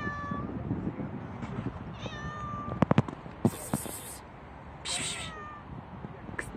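Black street cat meowing three times, short calls about two and a half seconds apart. A few sharp clicks near the middle are the loudest sounds, with brief rustling around them.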